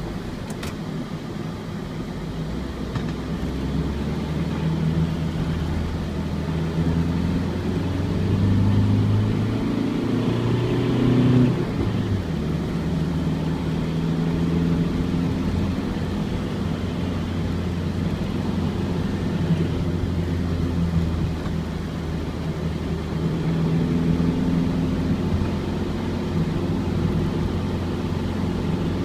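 Ford Transit van's four-cylinder diesel engine heard from on board while driving. The engine note climbs in pitch under acceleration, drops suddenly about eleven seconds in, and then runs steadily at cruise.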